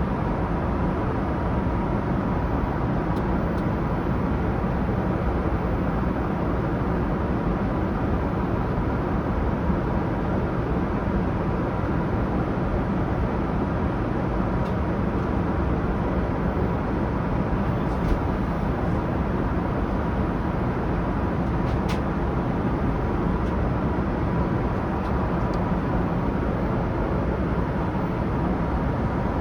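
Steady cabin noise of a Boeing 787-9 airliner in cruise: an even, unchanging roar of engines and airflow, with a faint steady hum and a couple of faint clicks.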